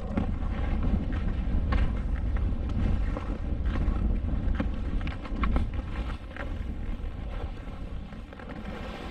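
Skis running through powder snow on a tree run, with steady wind rumble on the microphone from the downhill speed and scattered small ticks and knocks. It gets a little quieter in the last few seconds.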